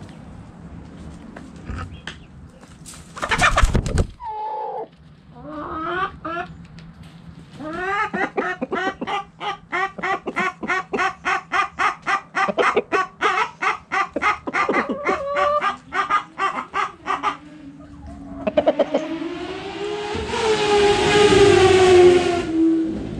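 Chickens: a brief loud burst of noise about three seconds in, then a hen clucking rapidly, about three to four clucks a second for some ten seconds. Near the end a rooster crows, one long call that rises and then falls.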